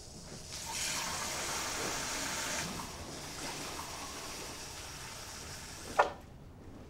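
Kitchen mixer tap running into a drinking glass, louder for the first couple of seconds and then softer, ending with one sharp knock as the water stops about six seconds in.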